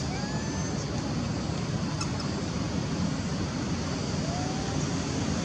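Steady outdoor background rumble, like wind or distant traffic, with a few faint short rising chirps.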